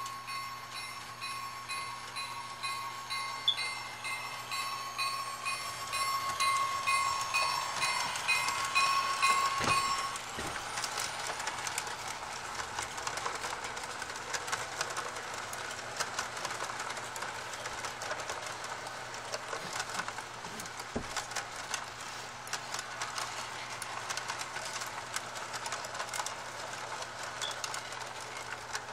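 Three-rail O-gauge model freight train running past on tubular track: a steady high whine with rhythmic ticking that grows louder and cuts off about ten seconds in, then a steady clatter of the cars' wheels rolling over the track.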